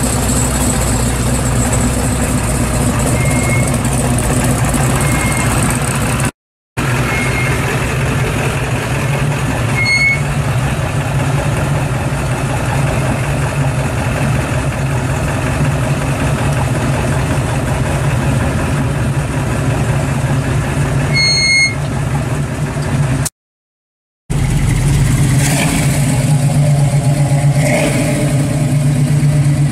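Classic American muscle-car engines idling one after another through loud exhaust, the sound breaking off into a brief silence twice where one car gives way to the next. Near the end the 1969 Camaro SS's V8 is revved briefly a couple of times.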